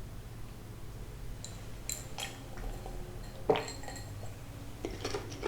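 Scattered light clinks and taps of dishes and utensils, with the loudest knock about three and a half seconds in.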